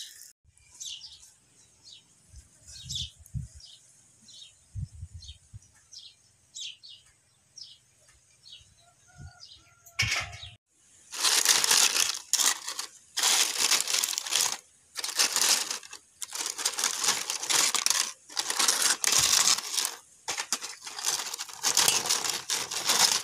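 Dry, brittle pearl-millet (bajra) papad wafers crackling and rustling in loud bursts as a hand rummages through a bowlful of them, starting about ten seconds in. Before that, faint short chirps repeat about once or twice a second, like a small bird calling in the background.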